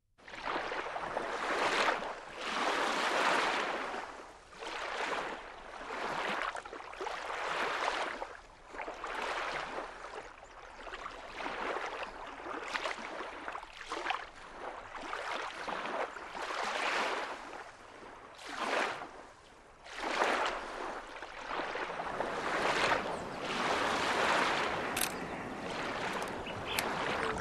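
Water sloshing and splashing in uneven surges, swelling and falling back every second or two.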